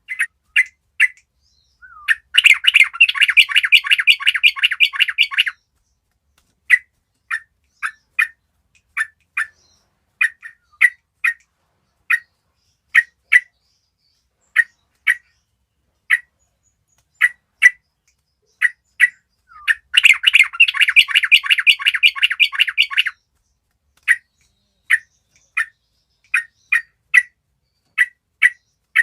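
Several young yellow-vented bulbuls (trucukan) calling: short chirps about two a second. The chirps are broken twice by a few seconds of rapid chattering, a couple of seconds in and again about twenty seconds in.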